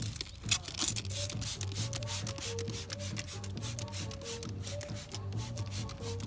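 Background music: a low bass line and a stepping melody over a busy beat of quick, sharp percussion hits.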